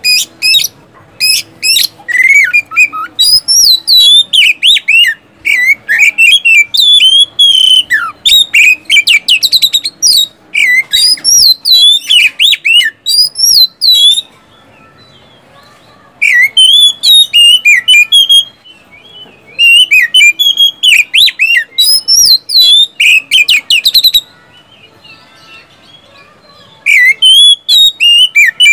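Oriental magpie-robin (kacer) singing loud phrases of fast sweeping whistles mixed with sharp, clipped notes, broken by short pauses, the longest near the end.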